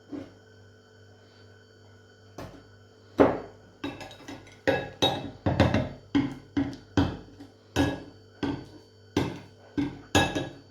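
A spoon knocking and scraping against the dish while spreading mascarpone cream, starting about two seconds in as a run of sharp, irregular knocks, two or three a second, each with a short ring.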